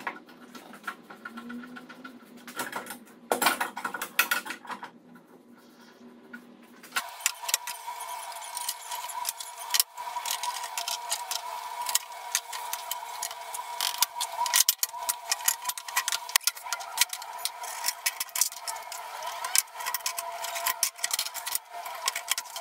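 Steel bar clamps being handled on a glued-up pallet-wood panel: repeated metallic clicks, clanks and rattles as the clamp jaws slide and the screws are turned. From about seven seconds in, a steady faint hum runs underneath.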